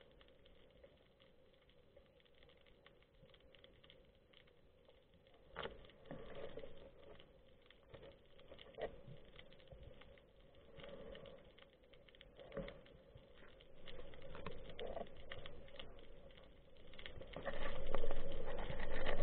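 Underwater sound heard through a waterproof camera housing on a speargun resting in seagrass: faint scattered clicks and crackles with a few soft knocks, getting louder near the end as the gun moves.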